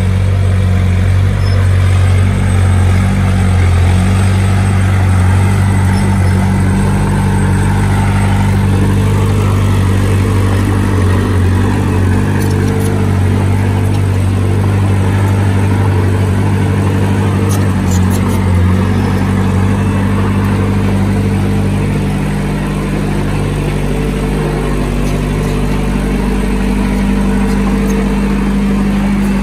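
A heavy diesel engine of earth-moving machinery runs steadily with a strong low hum, alongside a fainter tone that wavers up and down in pitch. The low hum eases off somewhat about three quarters of the way through.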